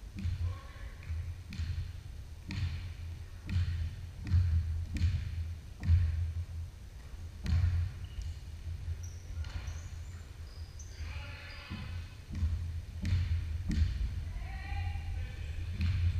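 Basketball bouncing on a hardwood gym floor, irregular thuds about once a second, echoing in the large gym.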